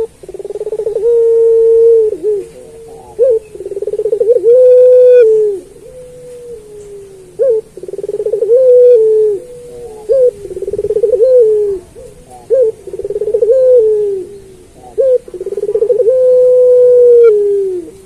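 Ringneck dove of the puter pelung type cooing: about seven long, low coos, each held steady with a fast throb and dropping in pitch at the end, with short rising notes between them.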